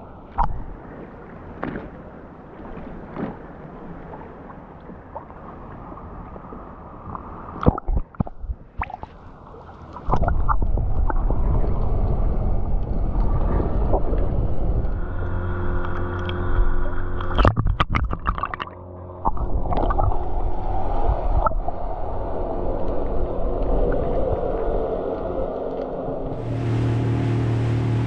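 Muffled underwater water sounds with gurgles and clicks. About a third of the way in, a steady low motorboat engine drone, heard through the water, takes over. Near the end the sound suddenly opens up to the boat running over the water above the surface.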